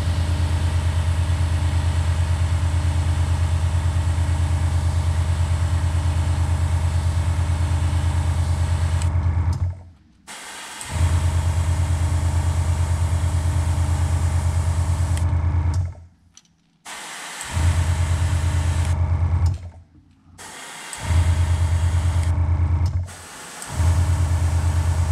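Small electric airbrush compressor running with a steady hum and hiss. After about ten seconds it cuts out and restarts four times, each pause lasting about a second, as the airbrush trigger is worked.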